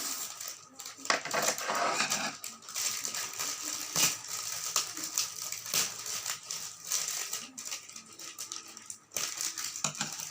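A shipping parcel being handled and opened by hand: irregular crinkling, rustling and rattling of plastic packaging.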